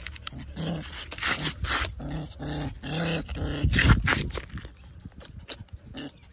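Puppy growling and yipping in short bursts, about two a second, while play-biting a person's hand; the calls stop after about four seconds, leaving faint scuffling.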